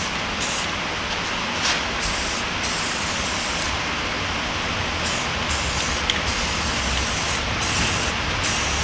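Aerosol can of caliper paint spraying, the hiss breaking off briefly again and again between passes.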